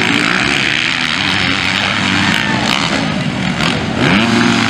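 Several motocross bikes racing through a dirt-track turn, their engines revving up and down between gears. About four seconds in, one bike passing close revs up sharply and gets louder.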